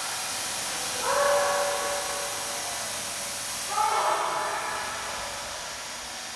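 Steady hiss of water spraying and splashing. Two drawn-out pitched cries rise over it, about a second in and again about four seconds in.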